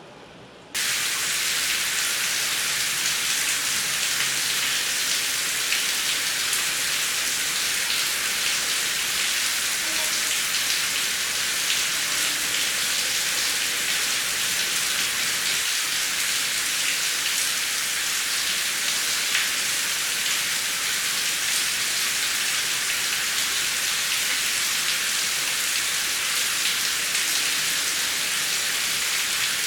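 Heavy rain, cutting in suddenly just under a second in over a softer hiss, then falling as a steady, dense downpour.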